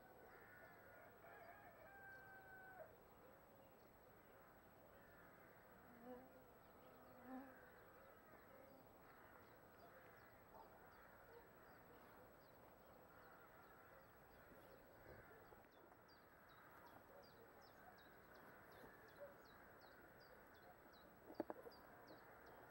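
Faint early-morning quiet with a distant rooster crowing near the start, rapid faint high chirps later on, and a short burst of clicks near the end.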